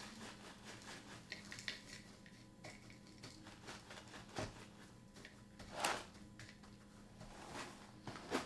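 Flakes and pecan clusters of Post Great Grains Crunchy Pecan cereal poured from the box's plastic liner into a ceramic bowl: faint rustling of the bag with scattered small clicks of pieces landing. A louder short rustle comes about six seconds in, as the bag is handled.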